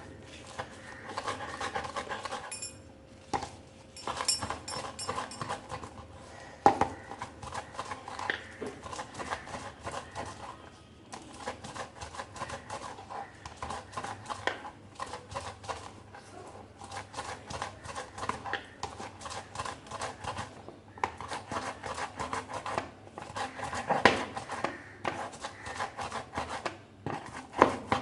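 A stone crushing fresh holy basil (tulsi) leaves to press out their juice, with quick repeated strokes at about two to three a second and a few brief pauses.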